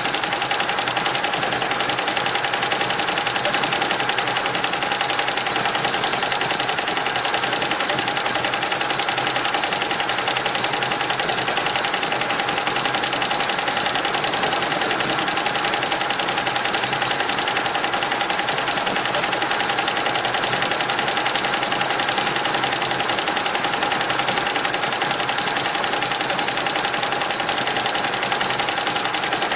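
Richpeace computerised embroidery machine stitching at speed: a rapid, even clatter of needle strokes over a constant whine.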